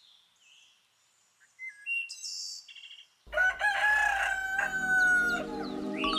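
Rooster crowing once, one long call of about two seconds, after a few short high bird chirps.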